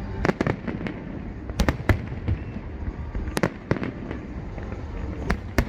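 Fireworks going off: about eight sharp bangs, several coming in close pairs, over a continuous low rumble.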